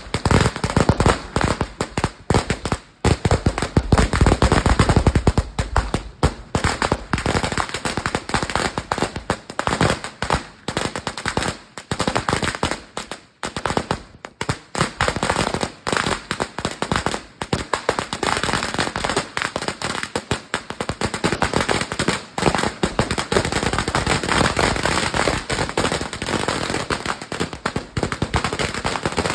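A 5,000-round 'sawa' firecracker belt going off in a rapid, continuous string of small bangs, a dense crackle with only momentary lulls.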